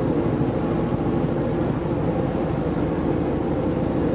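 A boat's engine running steadily at a constant speed, with a fast even low pulsing and a steady hum.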